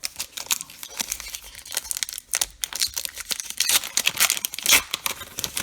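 Baseball card pack wrapper being torn open and crinkled by hand: a dense run of quick crackles, busiest about four to five seconds in.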